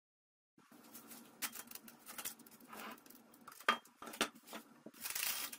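Plastic cling film crackling and crinkling as it is stretched over a glass bowl and pressed around its rim, with scattered sharp clicks and a denser rustle near the end. Silent for the first half-second.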